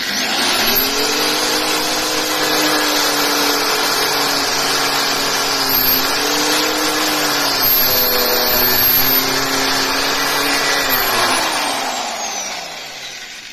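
Electric angle grinder switched on and running at full speed, a high whine over a harsh hiss, its motor pitch dipping a few times as the disc cuts through a spiky green chestnut husk. Near the end it is switched off and winds down, the pitch falling as it fades.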